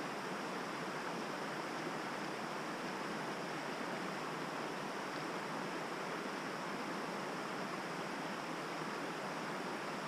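A river running: a steady, even rush of water with no breaks.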